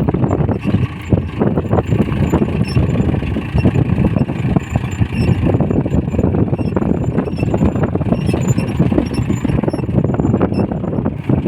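Mahindra Yuvo 415 DI tractor's diesel engine running steadily while the tractor pulls a two-bottom reversible mouldboard plough through hard soil. Faint short high squeaks come and go above the engine.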